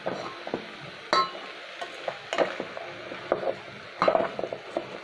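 A black spatula stirring vegetables as they fry in a steel cooker pot, with irregular scrapes and knocks against the metal over a steady background sizzle.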